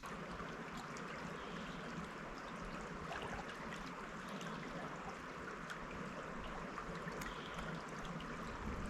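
Trout stream running steadily, a constant rush of flowing water.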